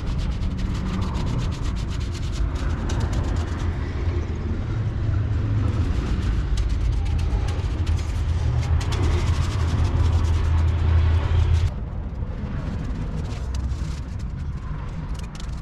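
A brush dabs and scrubs black rubber repair solution onto the rubber of a truck tyre, with many small sticky clicks and rubbing. A steady low drone runs underneath and drops away suddenly about twelve seconds in.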